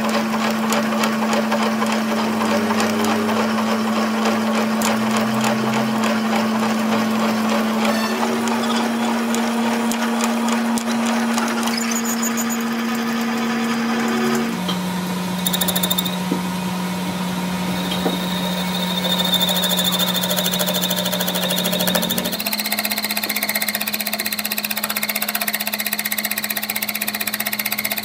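Metal lathe running with a steady motor and spindle hum while a twist drill and then a cutting tool cut into a spinning metal workpiece, a rough scratchy cutting noise over the hum. The hum jumps to a slightly different pitch a few times.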